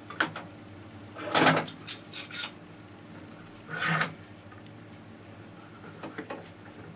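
Metal bar clamps clattering and clicking against an aluminium fence rail and wood packing blocks as they are set in place and tightened. There is a handful of short knocks, the loudest about a second and a half in, another about four seconds in, and light clicks near the end.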